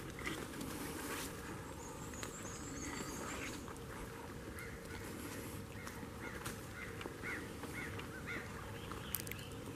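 Turkey yelping: a run of about ten evenly spaced, arching notes in the second half, over a steady outdoor hiss. A small bird chirps faintly and high earlier on.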